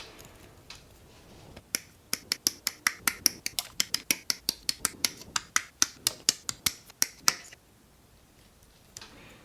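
A rapid, even run of sharp plastic clicks, about four or five a second, starting about two seconds in and stopping suddenly after some five seconds. It comes from work on a plastic model kit.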